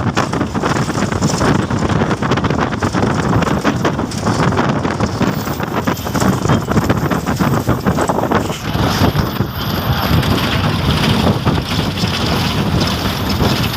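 Wind buffeting the microphone over steady road and traffic noise from a moving vehicle, rough and unbroken throughout.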